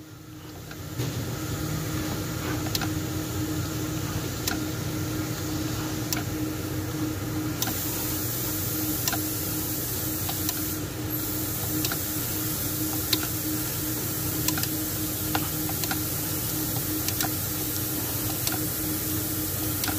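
Scattered light clicks and ticks from a Mitsubishi 4D56 diesel engine being turned over slowly by hand at the crankshaft, over a steady mechanical hum.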